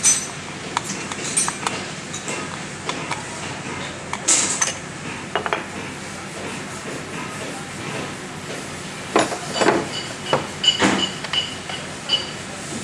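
Scattered metal clinks and knocks of hand tools and parts against an alternator's metal housing as it is worked on by hand, busier in the last few seconds, where some clinks ring briefly.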